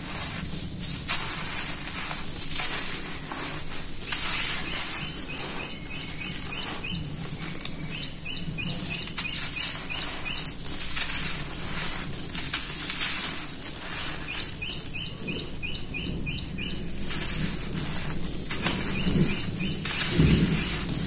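Dry red-dirt-coated sand-cement chunks crumbling between fingers: a gritty crunching with the patter of grit and dust falling onto the floor. A bird chirps in short quick runs of notes several times in the background.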